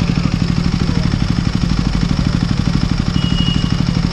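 Single-cylinder KTM motorcycle engine idling with a fast, even beat. The engine has a tick-tick noise that the mechanic puts down to the cam chain tensioner, possibly the cam chain.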